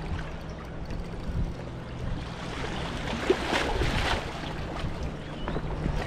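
Small boat's motor running steadily, with wind and water noise, and a short rush of noise about three and a half seconds in.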